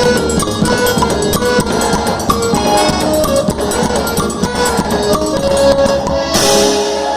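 Instrumental quadrilha junina (forró-style) music: held melodic notes, likely accordion, over busy fast percussion with tambourine-like shakes and drum. About six seconds in, a rushing swell of noise rises and the low drums drop out near the end.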